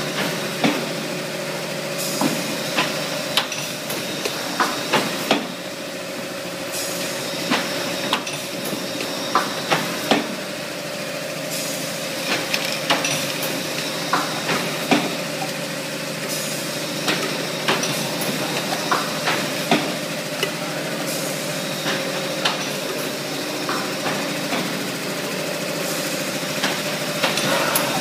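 Two-cavity automatic PET bottle blow moulding machine running: a steady hum with a constant tone, irregular sharp clicks and clanks from its moving parts, and spells of air hiss that come and go every few seconds.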